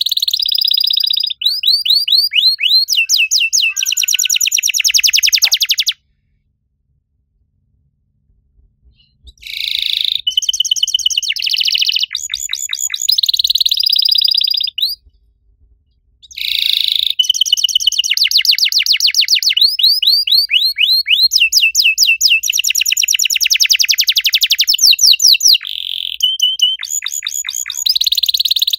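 Domestic canary singing: long phrases of rapid repeated chirps and fast trills. The song breaks off for about three seconds roughly a fifth of the way in, and briefly again past the middle.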